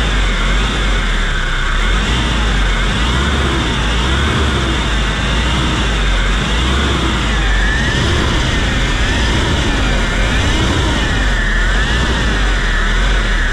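Hyundai Grand Starex engine being revved up and down repeatedly, with a whining, grinding noise that rises and falls with engine speed about once a second. The mechanic likens it to a power-steering pump running dry or a failing bearing, and the suspect is the timing chain.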